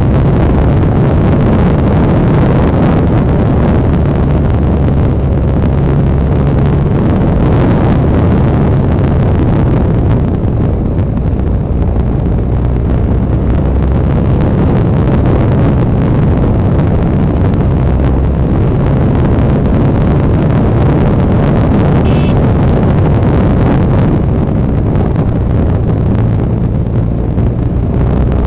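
Honda NX650 Dominator's single-cylinder thumper engine running under way, with wind rushing over the microphone. The sound softens for a couple of seconds about ten seconds in and again near the end.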